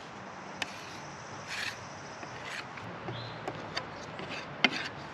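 Hand-held glue spreader scraping over plywood as wood glue is spread across it, in short strokes with light clicks and taps; the sharpest tap comes near the end.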